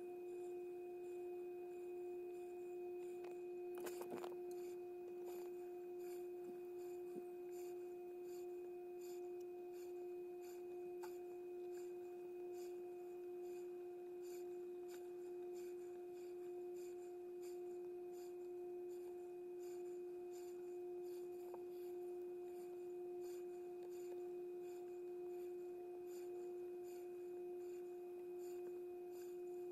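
A steady hum at one unchanging pitch, with faint, evenly spaced ticks above it.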